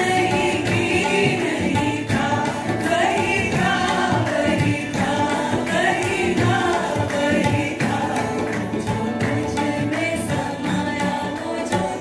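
Live Indian folk-style band music: several voices singing together over harmonium, strummed acoustic guitar, tabla and cajon, with a steady hand-drum rhythm.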